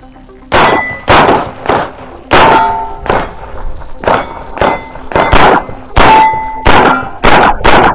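A rapid string of 9mm pistol shots from a Canik SFX Rival, about two a second, starting about half a second in, with steel target plates ringing after several of the hits.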